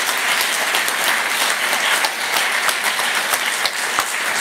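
Audience applauding steadily: many hands clapping at once in a large hall.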